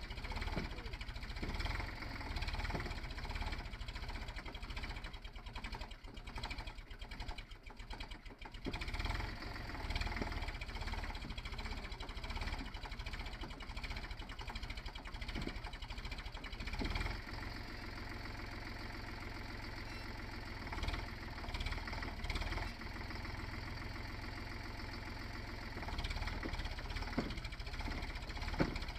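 Farm tractor's diesel engine running under load with its wheels sunk in deep mud, the engine note wavering and dropping briefly a few seconds in, then steadier in the second half.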